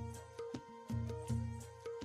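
Background music with a steady low drum beat, about two strokes a second, under a held high note.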